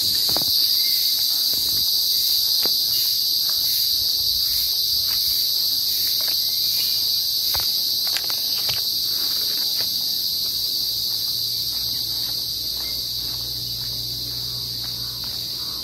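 Steady, high-pitched drone of an insect chorus, growing gradually quieter through the second half, with a few faint clicks.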